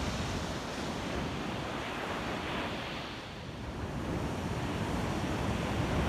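Ocean surf breaking and washing up a sandy beach in a steady rush, with wind buffeting the microphone in a low rumble.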